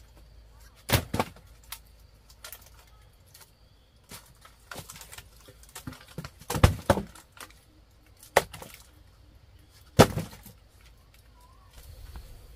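Dry firewood sticks being broken and knocked by hand: a handful of separate sharp cracks and knocks, the loudest about a second in, near seven seconds and at ten seconds.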